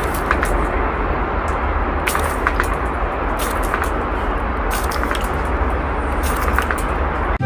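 Steady rushing noise with a deep rumble underneath and scattered sharp clicks.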